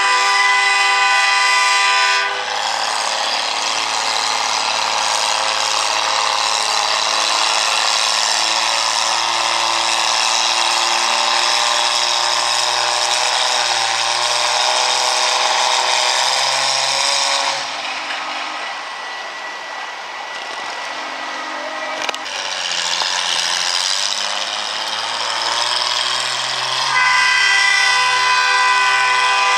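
Farm tractor engine running hard at a tractor pull. It starts as a steady multi-pitched drone, turns harsher and noisier about two seconds in as the tractor pulls, eases off for a few seconds about two-thirds of the way through, then builds again to the steady drone near the end.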